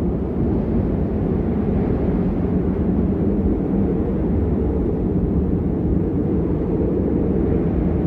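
Wind blowing steadily, a dense low rumble with no lulls or distinct gusts.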